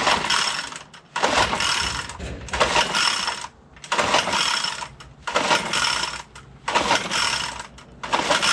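Recoil starter of a Troy-Bilt backpack blower pulled about seven times in a row, roughly one pull every second and a third. Each pull is a short whirring rattle, and the engine never fires. The pulls feel smooth, which the owner takes for no compression.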